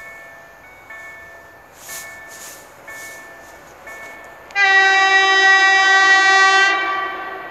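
Level-crossing warning bell chiming about once a second, then a train horn sounding one long blast of about two seconds, the loudest sound, starting about four and a half seconds in and fading near the end.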